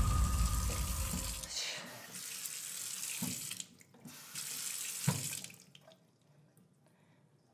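Kitchen faucet running into a sink, with a deep musical rumble fading out over the first second and a half. The water breaks off briefly about four seconds in, runs again, and is shut off about five and a half seconds in; two dull knocks fall near three and five seconds.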